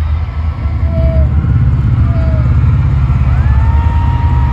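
Helicopter sound effect played loudly over an arena PA: a fast, low rotor chop, with a tone that rises about three seconds in and then holds.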